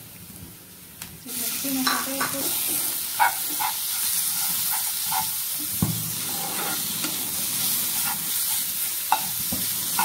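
Raw chicken mince hitting hot oil in a non-stick frying pan: a sudden loud sizzle starts about a second in and runs on steadily, with the scrape and tap of a spatula stirring it through the pan.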